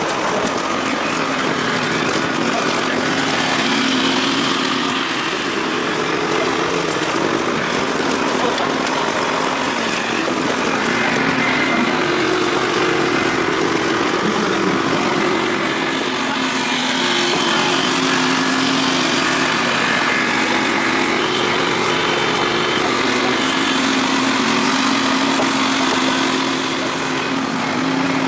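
Small engine of a hydraulic rescue-tool power unit running steadily, pumping the hoses that drive the firefighters' cutting and spreading tools.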